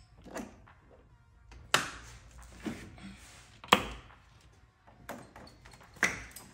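Hand tools and metal parts knocking and clicking in a car's engine bay while bolts are removed one by one: about six separate sharp knocks, roughly one a second, the loudest a little before the four-second mark.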